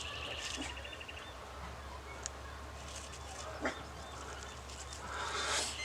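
A harsh, buzzy animal call at the start and again near the end, with two faint clicks in between, over a low steady hum.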